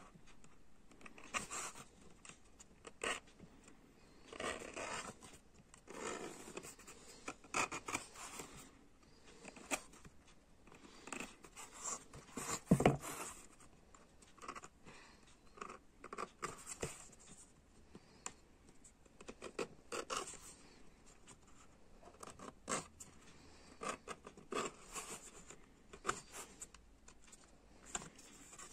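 Hand work on a leather knife sheath with a small pointed tool: short rasping, scraping strokes a second or two apart, with one sharp knock about halfway through.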